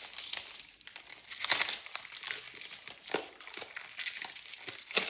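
Foil wrapper of a Pokémon card booster pack crinkling and rustling in the hands as it is being opened, in irregular crackly bursts.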